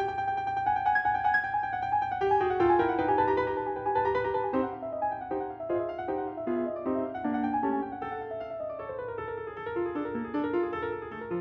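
Background piano music: a melody of short stepped notes over chords.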